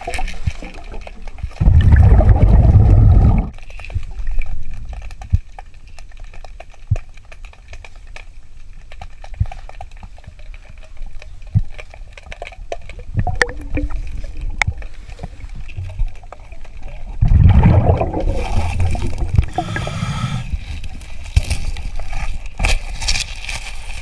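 Underwater sound of a scuba diver breathing through a regulator: exhaled bubbles gurgle out in two loud surges, about two seconds in and again near seventeen seconds. In between there is a quieter hiss with scattered small clicks.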